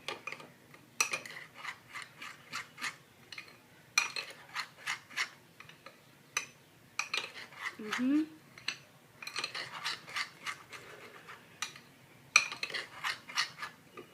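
A utensil scraping and clinking against the inside of a cup while thick chocolate cake batter is stirred and folded, in quick runs of about three to four strokes a second with short pauses. There is a short rising tone about eight seconds in.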